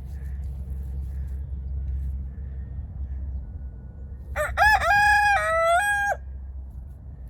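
A rooster crowing once, a single crow of nearly two seconds that starts about four and a half seconds in.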